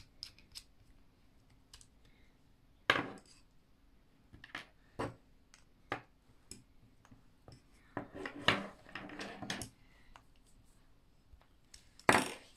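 Meccano Junior plastic strips, nuts and bolts clicking and knocking as they are handled and screwed together with a plastic screwdriver. Scattered clicks, with a louder clatter about three seconds in, a busy run of knocks around eight to ten seconds, and another loud knock near the end.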